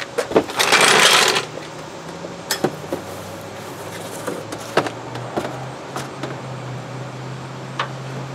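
Cardboard box rustling and scraping close by for about a second near the start, then scattered light clicks and knocks as a new A/C condenser is drawn out of its box and set into the car's front end. A faint low hum comes in about halfway through.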